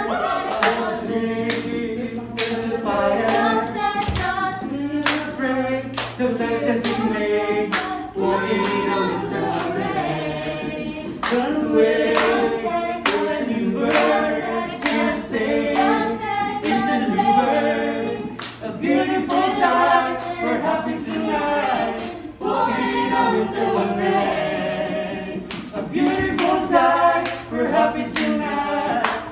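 A small group of men and women singing together a cappella, with a steady beat of hand claps under the voices.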